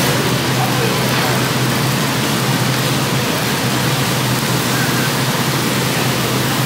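Beef slices sizzling on a hot BBQ-steamboat grill pan: a steady, even hiss that does not let up, with a steady low hum underneath.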